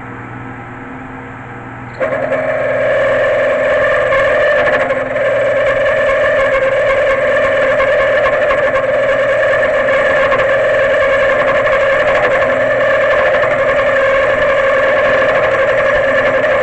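Micro milling machine running with a low motor hum; about two seconds in the cutter bites into the part and a loud, steady, high-pitched cutting whine sets in, dipping briefly once.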